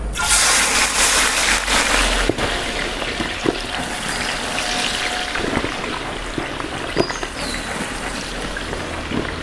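Sliced onions dropped by the handful into hot sunflower oil in a large pot, the oil sizzling. The sizzle starts suddenly and is loudest in the first two seconds, then settles into a steady hiss with a few pops.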